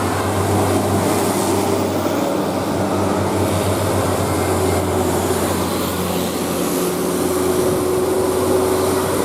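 A heavy road vehicle, most likely a big bus, passing close by: steady engine hum and road noise.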